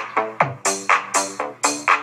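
Electronic dance music, a DJ remix, playing through a budget Bluetooth power amplifier and speaker during a sound test, with a fast steady beat of about four hits a second.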